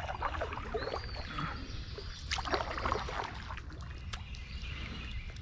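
Kayak paddle dipping and splashing in river water in two bouts of strokes. A bird gives one short whistle about a second in.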